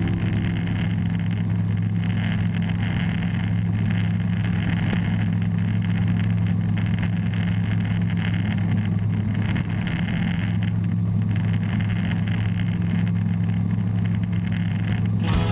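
Bristell light aircraft's piston engine and propeller droning steadily at a constant setting, with a steady low hum.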